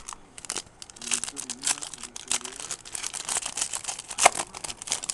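A baseball card pack wrapper crinkling and tearing as it is opened: a quick run of crackles, with one sharp snap about four seconds in.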